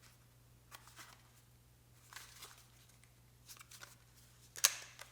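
A small accessory box being opened by hand and its contents handled: faint scattered rustles and taps, then one sharp click near the end.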